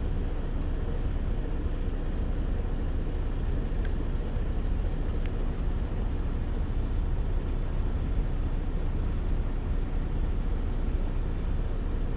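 Steady low rumble of a parked truck's engine idling, heard from inside the cab.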